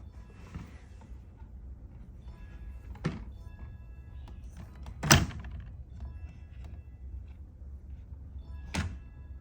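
Soft background music with three sharp knocks, about three, five and nine seconds in, the middle one loudest: plastic toy pieces being handled on a hard surface.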